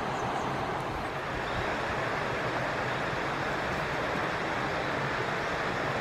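Steady rushing of flowing stream water, even and unbroken, with a few faint high chirps near the start.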